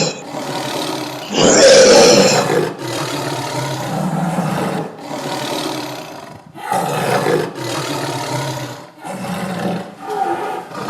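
Tiger roaring and growling: one loud roar about a second and a half in, then a string of lower, rougher growls, each a second or two long with short breaks between them.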